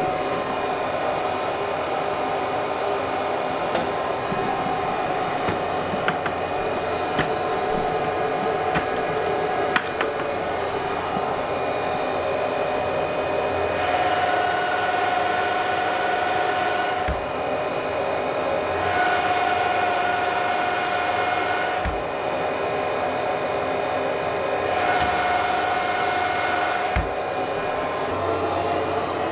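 Bitmain Antminer S19j Pro bitcoin miner's cooling fans running at full speed, muffled inside a closed, insulated food-cooler box. The sound is a steady fan rush, with a faint whine that swells about every five seconds in the second half.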